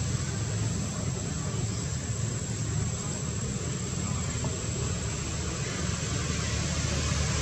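Steady outdoor background noise: a low rumble under an even hiss, with a faint thin high tone. No distinct calls or sudden sounds.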